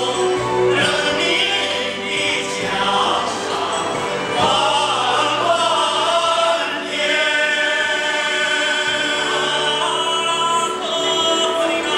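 Male vocal sextet singing in harmony, holding long chords that change every second or two.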